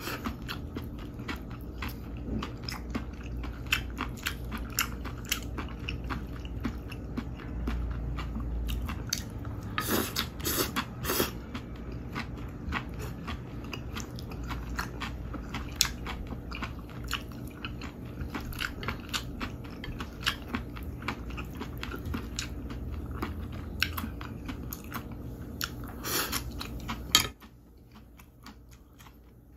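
Close-miked chewing and biting of chopped raw live octopus with cucumber strips, a dense run of small clicks. Near the end a sharp knock, as the wooden chopsticks are set down on the ceramic plate, and then it goes much quieter.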